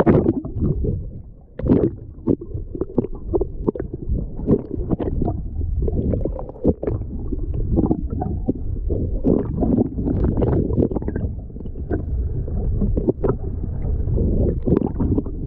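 Muffled sloshing water noise with many short knocks and splashes, heard from a fishing boat at sea.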